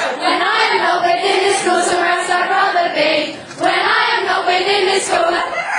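Voices singing a tune in long held notes, with a brief break about three and a half seconds in.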